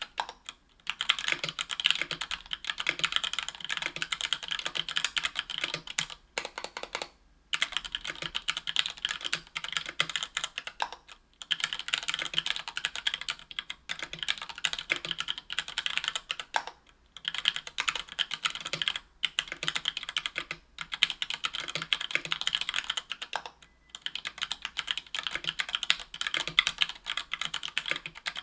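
Continuous fast typing on a 60% aluminium-case mechanical keyboard with stock, unlubed Gateron Yellow Ink 60g linear switches and Cherry-profile PBT keycaps. The rapid keystrokes run in bursts separated by several short pauses of under a second.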